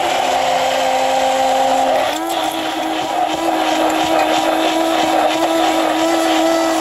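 Electric stick blender running in a tall plastic beaker, puréeing cooked carrots into a smooth cream. A steady motor whine over a churning wash, its pitch rising a little about two seconds in.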